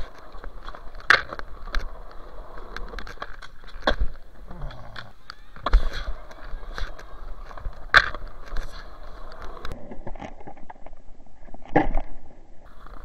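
Skateboard wheels rolling on concrete with a steady rumble, broken by about five sharp clacks of the board spread through.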